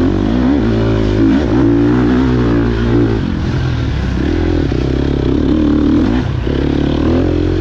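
Dirt bike engines revving. The pitch swings up and down at first, then holds steady, with short drops in revs about three and six seconds in.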